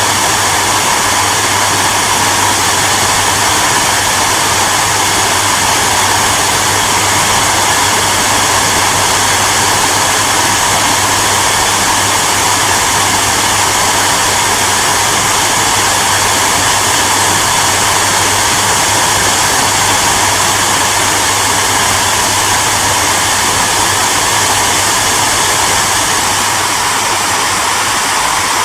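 Hair dryer running steadily, a continuous even rush of air over a low motor hum.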